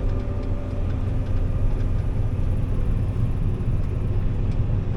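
Combine harvester running steadily while cutting soybeans: a continuous low rumble with a faint steady hum over it.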